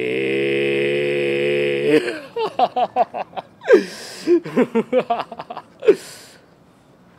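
A man's voice holds one long, steady 'aaah' for about two seconds, then breaks into short choppy laughter with breathy gasps. It stops about six seconds in.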